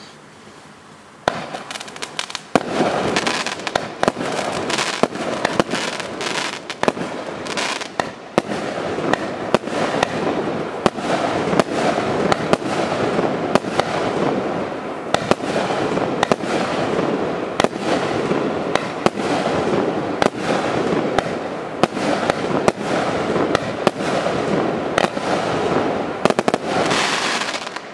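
A 25-shot, 0.8-inch fireworks cake battery (TKB531 "Мульт 15") firing. A hiss starts about a second in, then shot after shot fires in quick succession over a constant crackling haze, stopping just before the end.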